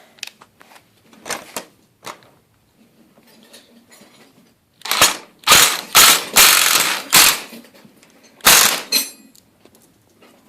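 Power driver running a screw into the garage door hardware in short trigger bursts: several bursts about halfway through, then one more near the end.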